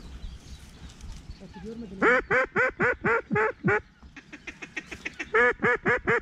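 Duck quacks: a loud run of about seven quacks, each falling in pitch, at about four a second starting about two seconds in, then after a short pause a second run near the end.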